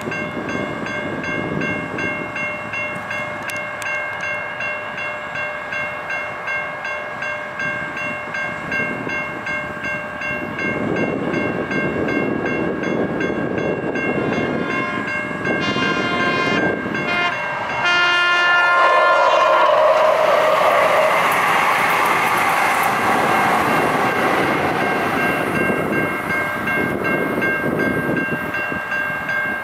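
Railroad crossing electronic bells ringing steadily, the nearest a Siemens E-Bell. About 15 and 18 seconds in, a SACRT light rail train sounds two horn blasts, then passes through the crossing with a rushing noise while the bells keep ringing.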